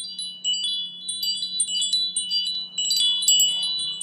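High tinkling chimes: many bell-like notes struck in quick succession and ringing over one another, above a low steady hum.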